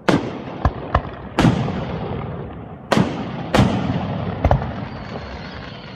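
Aerial firework shells bursting close overhead: about seven sharp bangs in six seconds, each trailing off in a rolling echo. A faint high whistle comes near the end.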